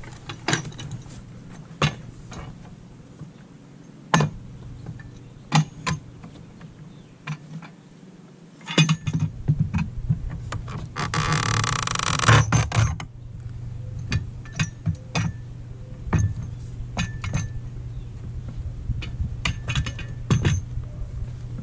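Homemade steel pallet breaker levering a deck board off a wooden pallet: scattered knocks and clicks as the tool is set against the wood, and a longer grinding creak about eleven seconds in as the board is pried up and its nails pull out. A steady low hum runs underneath.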